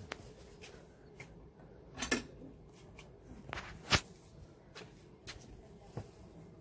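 Scattered wooden knocks and clacks of a picket garden gate being passed through, with footsteps on wooden decking; the loudest knocks come about two seconds in and about four seconds in.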